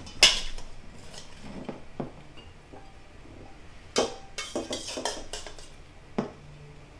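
Metal tongs clinking and scraping against a stainless steel mixing bowl as blanched broccoli is lifted out. Irregular clanks: a sharp one about a quarter-second in, a cluster of several from about four to five and a half seconds, and one more near the end.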